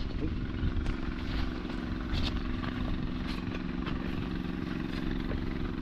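A steady engine drone holding one pitch, with a few faint clicks on top.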